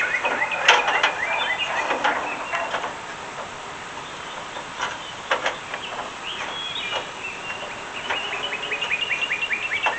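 Charcoal briquettes clicking and shifting as they are stacked by hand, a few sharp clicks scattered through. Behind them a bird sings a fast series of short chirps, which stops about three seconds in and starts again near the end.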